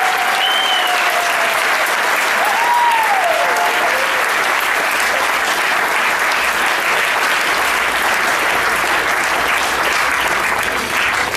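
Audience applauding steadily, with a couple of short rising-and-falling calls in the first few seconds.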